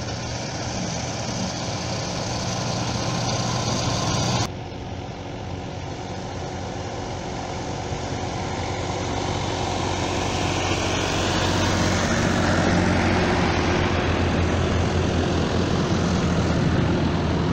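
Tractor engines running as a line of tractors comes along the road, growing steadily louder as they approach. The sound changes abruptly about four seconds in.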